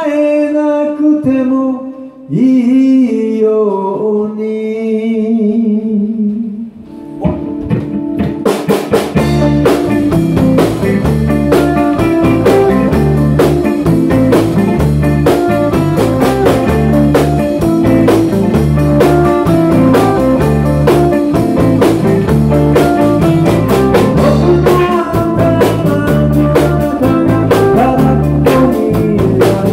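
A rock band playing live. For about the first seven seconds a man sings with only light accompaniment, then drums, bass and electric guitars, a Rickenbacker among them, come in together and the full band plays on with a steady beat.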